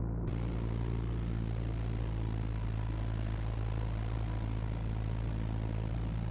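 Super Decathlon's four-cylinder Lycoming engine and propeller droning steadily, heard from inside the cockpit.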